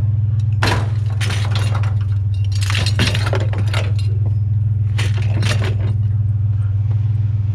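Clinking and rattling clatter of a steel chandelier frame being handled for scrap, over the steady low hum of an idling truck engine.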